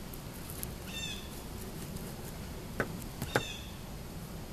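A bird calling twice, each call a quick burst of downward-sliding notes. Two sharp clicks about three seconds in are the loudest sounds, over a steady low outdoor background.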